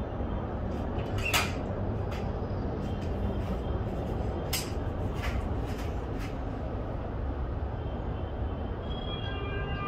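One sharp crack about a second and a half in: a shot from a .177 Precihole NX 200 nitro-piston air rifle at a bottle cap target, which it hits. A few fainter clicks follow a few seconds later over a steady low outdoor rumble.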